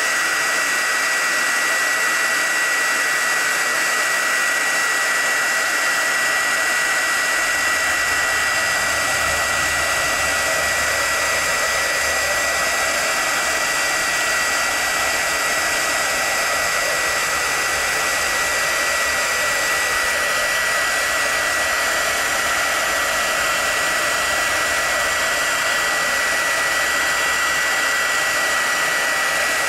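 Craft embossing heat gun running steadily: blowing hot air with a steady high whine, melting embossing powder on a stamped card.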